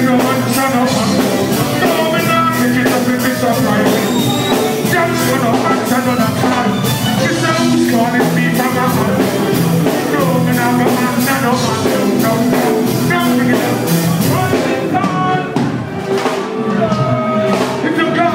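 Live reggae band music, loud and steady: a regular drum beat over a bass line, with instruments and some singing on top.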